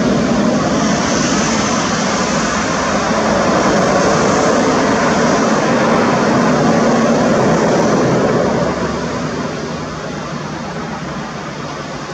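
Sukhoi Superjet 100's twin SaM146 turbofans running loud during the landing rollout, a steady roar with a faint high whine, dropping noticeably about nine seconds in as the jet slows on the runway.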